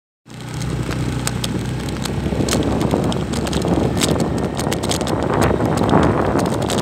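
Motorcycle engine running while riding, with wind rushing over the microphone and scattered clicks and knocks.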